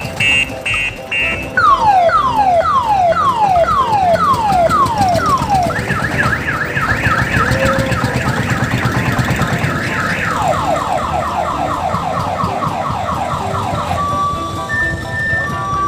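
Multi-tone electronic siren horn cycling through its patterns. Pulsed beeps give way to falling wails about two a second, then a fast high warble, then quicker falling yelps, then stepped beeps near the end, over a low engine rumble.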